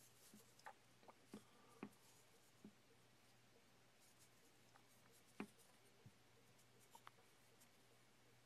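Near silence: fingers handling and pressing a small stone-powder clay figure, giving about ten faint scattered taps and light rubs, over a steady low hum.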